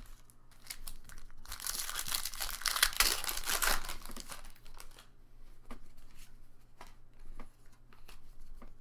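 A foil Pokémon booster pack being torn open, its wrapper crinkling loudly for about two and a half seconds, followed by light scattered clicks of cards being handled.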